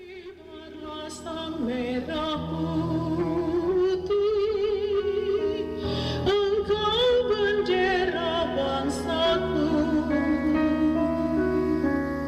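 A recorded song fades in: singing with vibrato over sustained accompaniment.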